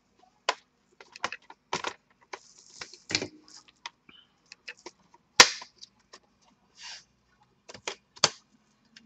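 Plastic retaining clips of a Dell Inspiron 15 5567's case snapping loose as its two halves are pried apart: a run of irregular sharp clicks and snaps, the loudest about five seconds in.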